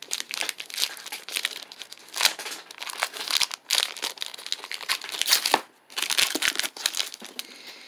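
Plastic granola bar wrapper crinkling as it is pulled and torn open by hand: a dense, irregular run of crackles with a brief pause before the last stretch, fading out shortly before the end.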